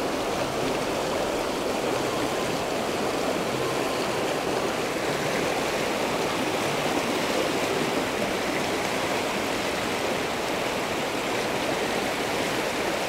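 Steady rush of shallow river rapids churning over rocks.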